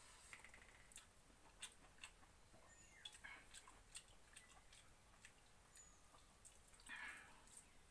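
Faint sounds of a person eating soaked rice by hand from a steel pot: wet squelching as the fingers mix the rice, chewing, and scattered small clicks.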